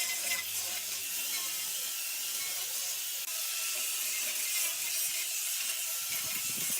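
Power tool working wood, a steady high hiss.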